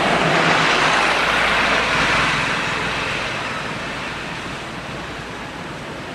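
Road traffic noise: a rushing sound that is loudest at first and slowly fades away.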